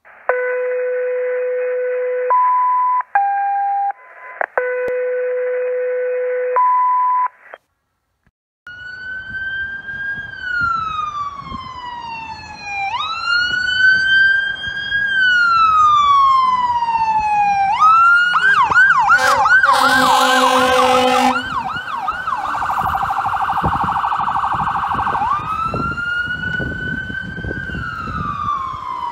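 A run of steady electronic tones at different pitches at first. Then a fire engine's siren wails, rising and falling slowly. About two-thirds of the way in it switches to a fast yelp with an air horn blast, holds a high note for a few seconds, and returns to the slow wail near the end.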